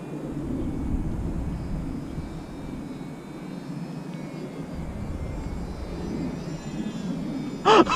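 Electric motor and propeller of a scratch-built foam-board RC plane buzzing as it flies overhead, with a faint whine above a steady low hum. Wind rumbles on the microphone throughout.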